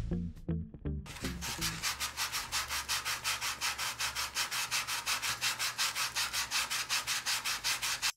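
A folded piece of 220-grit sandpaper rubbed quickly back and forth along the edge of a dry foam clay sculpture, about six strokes a second, starting about a second in and stopping suddenly near the end. Background music with a beat fills the first second.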